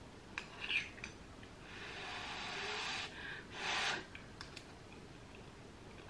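A teaspoon clinks lightly against a ceramic mug. Then come two breathy blows on a too-hot spoonful of microwaved mug cake to cool it: a long soft one, then a shorter, stronger one.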